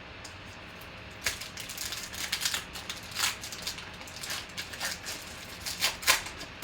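2019 Panini Contenders football cards being handled and flipped through, a run of quick, irregular swishes and flicks starting about a second in.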